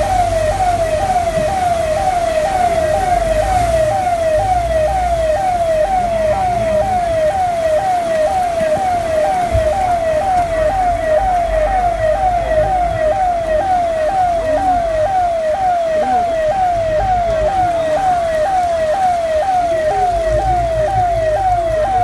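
Electronic siren repeating a short falling tone, about twice a second, steady and unbroken, over a low rumble.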